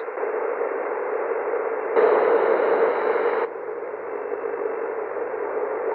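Icom IC-M802 marine HF transceiver's receiver giving steady band noise from its speaker while stepping between empty channels on the 5 MHz and 80 m bands, with no signals heard. About two seconds in, the hiss turns louder and brighter for about a second and a half, then drops back.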